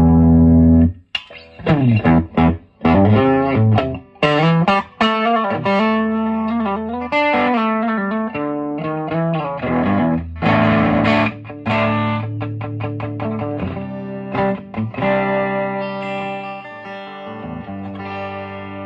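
Electric guitar played through a vintage Cordovox amplifier. A held chord cuts off about a second in, then comes a run of picked single notes with sliding pitches and short chords, and a last chord is left ringing and slowly fading near the end.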